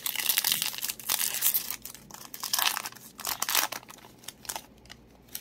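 Foil wrapper of a Pokémon trading-card booster pack crinkling and tearing as it is ripped open by hand, in several crackling bursts, then going quieter near the end.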